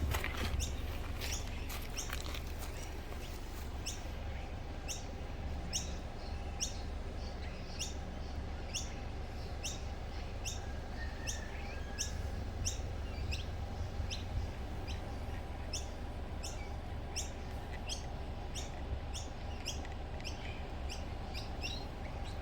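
A small bird chirping over and over, a short high falling note about one and a half times a second, over a steady low rumble.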